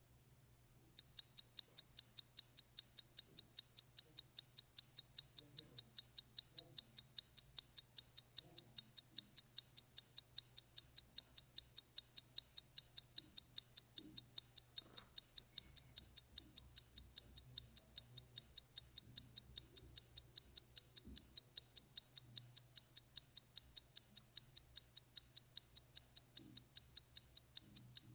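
Clock ticking in quick, even, high-pitched ticks, starting about a second in.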